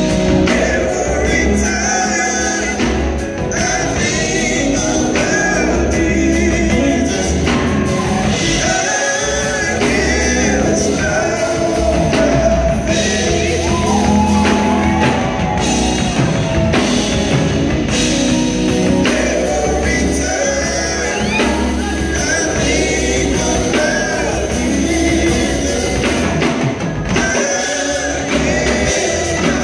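Live gospel music: several singers on microphones, backed by keyboard, electric guitar and drum kit.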